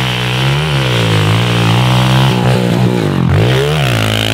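Small Honda CRF trail bike's four-stroke single-cylinder engine being ridden hard, its revs rising and falling as the rider works the throttle, with a sharp drop about three seconds in before it climbs again.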